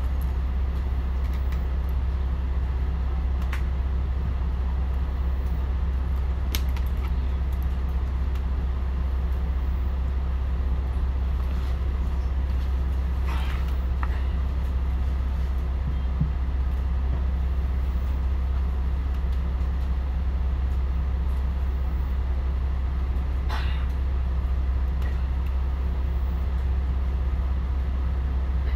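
Volvo D10A six-cylinder diesel of a Volvo Super Olympian double-decker bus idling at a standstill, heard from inside the bus as a steady low hum along with its radiator cooling fan.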